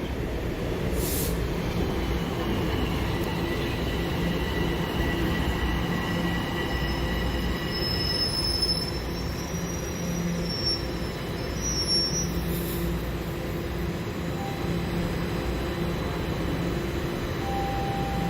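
TTC subway train running on the rails with a steady low rumble, its wheels squealing in several thin high-pitched tones for a stretch in the middle.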